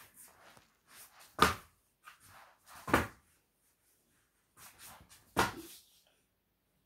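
Three loud thumps, a second and a half to two and a half seconds apart, with softer knocks and rustles between them.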